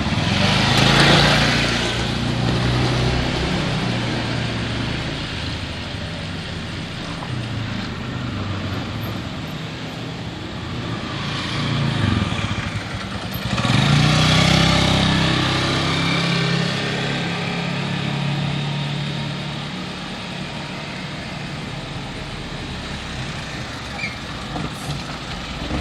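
Motorcycles and cars passing on the road, their engines running steadily underneath. Louder passes come about a second in and again about halfway through.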